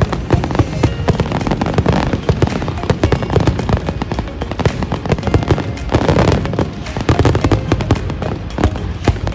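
Fireworks going off in quick succession, a dense run of bangs and crackles, with music playing alongside.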